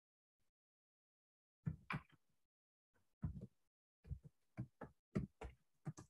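Faint computer keyboard keystrokes: a few scattered taps, then a quick run of about eight keystrokes in the last two seconds.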